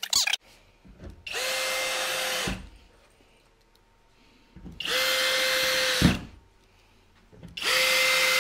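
Cordless drill running in three short bursts of about a second each, spinning up and winding down each time, as it drives screws through a plywood side panel into the boat's wooden frame.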